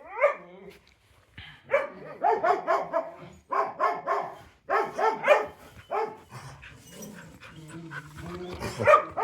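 Dogs barking and yipping in quick runs of short barks, several a second, with brief pauses between runs.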